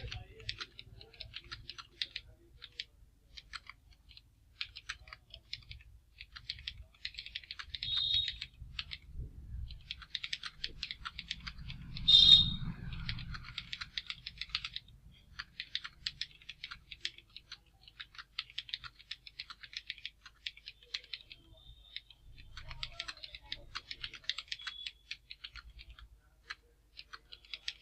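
Fast, continuous typing on a computer keyboard, keys clicking in quick runs with brief pauses between bursts, during a timed typing-speed test. About twelve seconds in there is one louder thump.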